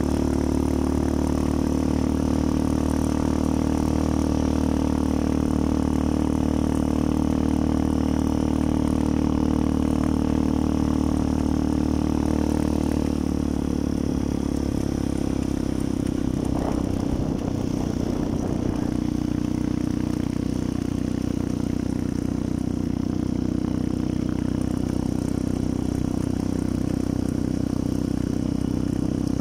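Motorcycle engine running steadily while riding along a road, heard from the pillion seat; the engine note shifts about halfway through.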